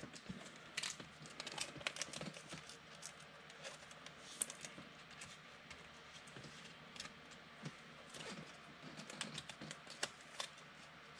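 Faint, irregular light clicks and taps, coming singly and in small clusters.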